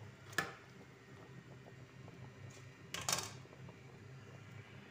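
Cookware clinking against a cooking pot: one sharp clink about half a second in and a short rattle of clinks around three seconds in, over a low steady hum.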